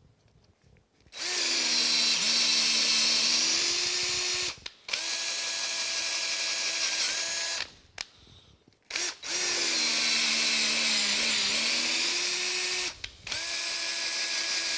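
Cordless drill driving a 5/16-18 tap into drilled holes in a cast-iron casting, cutting threads. The motor whines in four runs of a few seconds each with short pauses between them. Its pitch sags under load in the first and third runs and holds steady in the second and fourth.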